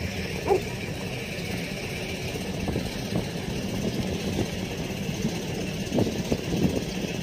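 A steady low engine hum under an even background hiss.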